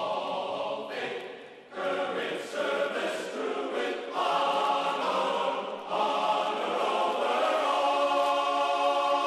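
Background music of a choir singing long held notes in phrases, with short breaks about two, four and six seconds in.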